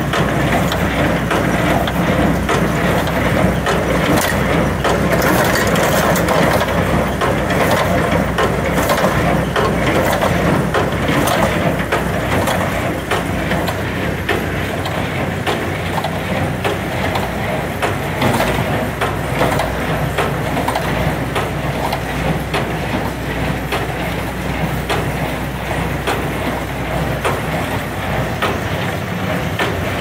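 New Holland 377 small square baler running, packing straw into bales, with a steady run of clatter and repeated knocks from its mechanism over the steady hum of the tractor engine driving it.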